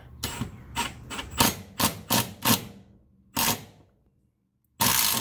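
Ratcheting box-end wrench clicking as it tightens a chock-mounting bolt: a run of about a dozen short clicks over two and a half seconds, then one more a second later. A short loud rush of noise breaks in near the end.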